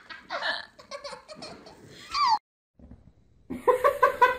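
A person laughing hard in quick repeated bursts. The laughter stops for about a second, two and a half seconds in, then starts again near the end.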